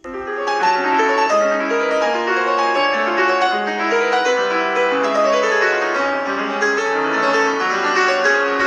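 A Samsung Galaxy S7 Edge ringtone playing: a quick piano-like melody of many short notes, with falling and rising runs.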